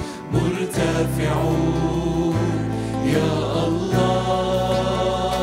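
Arabic Christian hymn sung by a group of singers with band accompaniment, the voices carrying the melody over a sustained bass line that changes note twice.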